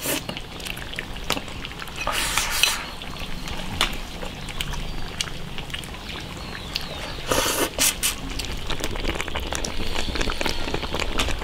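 Eating soup-soaked rice with chopsticks: scattered light clicks of chopsticks on a bowl and two short wet slurps.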